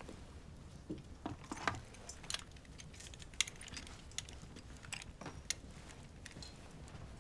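Scattered small, sharp clicks and clinks at uneven intervals over a low steady rumble; the loudest come around the middle.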